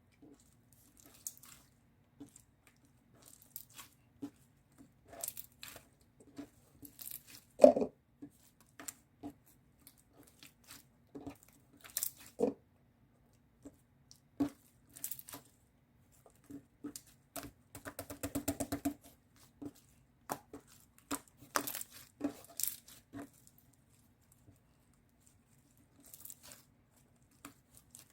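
Scattered small handling noises in a small room: irregular clicks, taps and rustles of objects being handled, with one sharper knock about seven seconds in and a brief rapid rattle about eighteen seconds in.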